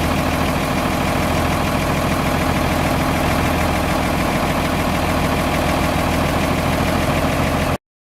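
Ford 9600 farm tractor's diesel engine running steadily at idle, then cutting off suddenly near the end.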